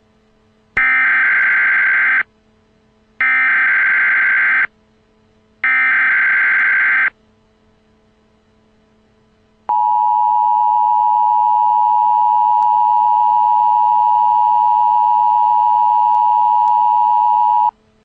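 Emergency Alert System tones: three short screeching blasts of the digital SAME header data, each about a second and a half with short gaps between. They are followed by the steady two-tone EAS attention signal, held for about eight seconds before it cuts off. The sequence marks the start of a National Weather Service tornado warning.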